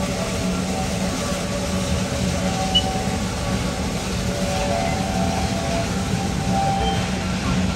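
Narrow-gauge steam train rolling past: a steady rumble of wheels on the rails, with short squeaking tones now and then.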